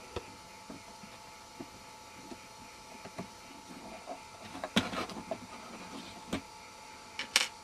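Screwdriver working the screws out of a computer case: faint scattered clicks and scrapes, with sharper clicks about five seconds in and a quick pair near the end.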